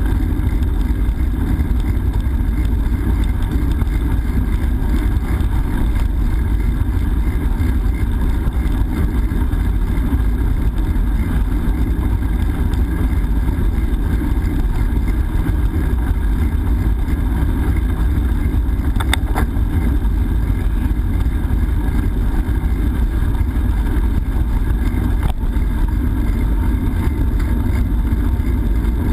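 Steady, loud, low wind rumble buffeting the microphone of a GoPro carried on a moving bicycle. Two brief clicks, one a little past the middle and one near the end.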